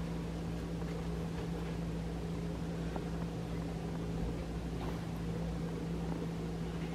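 A steady low mechanical hum of constant pitch, as from a motor or household appliance running, with a few faint small ticks.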